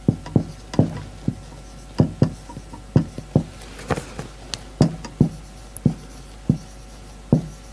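Dry-erase marker writing on a whiteboard: a string of short, irregular taps and scratches, about two a second, as each letter is put down.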